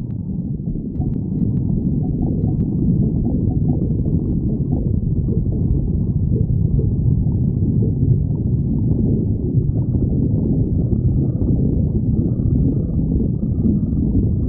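Human stomach growling and gurgling: a continuous low rumble with no breaks.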